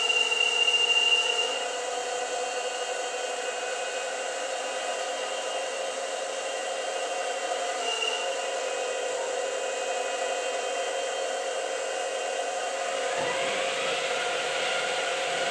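1:8 scale RC Caterpillar 390D model excavator's hydraulic system running: a steady motor-and-pump whine made of several held tones. About 13 seconds in, a second whine rises in pitch as a drive speeds up.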